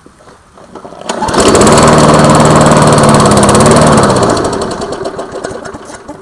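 Briggs & Stratton push-mower engine, freshly primed after months unused, catching about a second in and running loud for roughly three seconds, then slowing and dying away.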